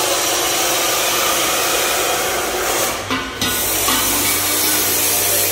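Steady, loud rushing of air from a large drum shop fan running on high.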